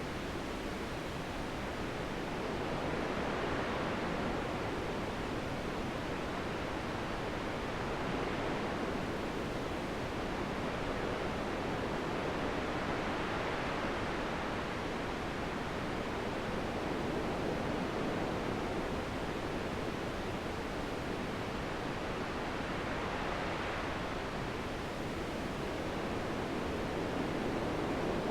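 Steady wind noise rising and falling in gentle swells every few seconds.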